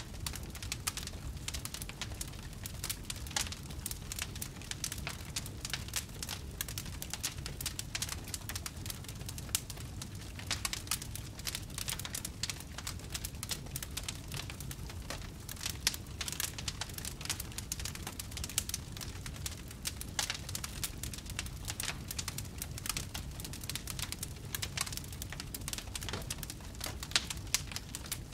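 Wood fire in a fireplace crackling and popping: a dense, irregular stream of small sharp crackles over a steady low rumble.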